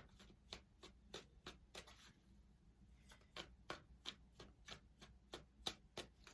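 Tarot cards being shuffled and handled: a faint run of irregular card snaps and taps, a few a second, with a short pause about two seconds in.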